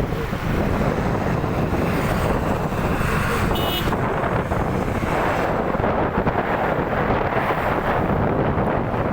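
Wind buffeting the microphone in a steady low rumble, with a brief high-pitched tone about three and a half seconds in.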